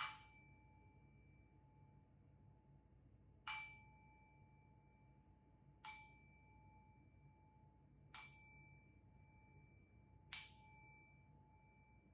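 Singing bowl struck five times, about every two to three seconds, each strike ringing on in one clear tone with fainter higher overtones until the next.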